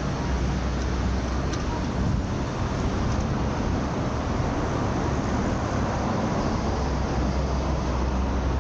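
Steady city street traffic noise: a continuous low rumble of passing road vehicles, easing in the middle and swelling again near the end.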